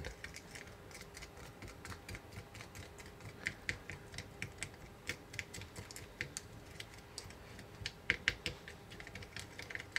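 Small plastic spatula stirring a thickening paste of powder and water in a small plastic cup: faint, quick, irregular light clicks and scrapes of plastic on plastic.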